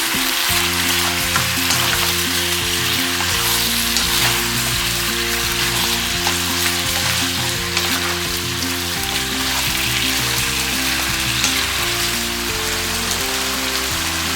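Chicken pieces frying in oil and soy sauce, a steady sizzle, under soft background music of held low notes.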